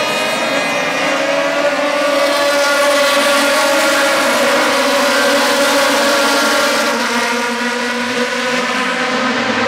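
A pack of Formula BMW single-seaters, each with a 1.2-litre four-cylinder BMW motorcycle engine, racing past at high revs on the opening lap. Many engine notes overlap in one loud, steady sound, with the pitches shifting a little as the cars brake and accelerate.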